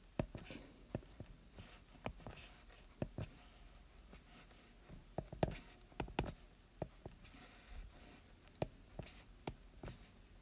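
Stylus tapping and scratching on a tablet's glass screen while handwriting letters: faint, irregular clicks with a few soft scratches between them.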